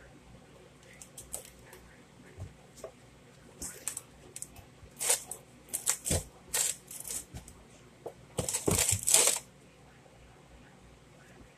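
Cardboard soda-can case rustling, scraping and crackling in irregular bursts as kittens wrestle with it and shove it across the carpet. The loudest burst comes about eight and a half seconds in, then the sounds stop.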